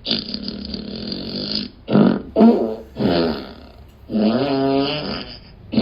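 A string of recorded fart sound effects played back one after another, with short gaps between them: a long breathy one, a few short ones, then a longer buzzing one whose pitch wavers, about four seconds in.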